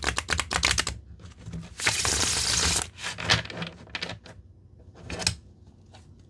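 A new tarot deck with gold-gilded edges being riffle-shuffled by hand: a rapid flurry of card edges flicking off the thumbs, a second flurry about two seconds in, then a few taps and rustles as the two halves are pushed together and the deck is squared.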